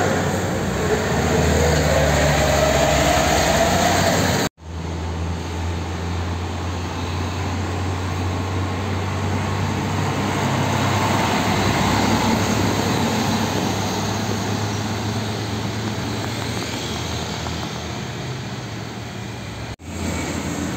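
Heavy diesel container trucks driving past close by, engine and tyre noise. A Hino tractor unit pulling a container accelerates with its engine rising in pitch. After a sudden brief dropout, a Nissan Diesel tractor hauling two containers runs past at a steady pace.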